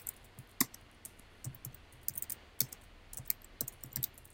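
Typing on a computer keyboard: irregular key clicks, some in quick runs, with short pauses between words.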